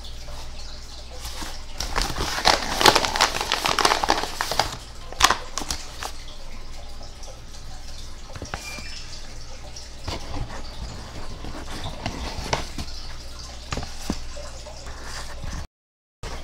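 Handling noise from kitchen utensils and bowls: a busy run of scraping, clinking and tapping about two to five seconds in with one sharp click just after, then scattered light taps as a spoon scoops powdery baby powder. The sound cuts out for about half a second near the end.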